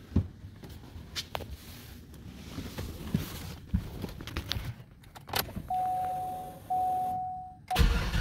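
Rustling, clicks and light knocks of someone settling into a Cadillac CTS-V's driver seat with keys in hand, then two steady chime tones from the car. Near the end the supercharged V8 cranks and catches, its first start since the auxiliary fuel pump was installed.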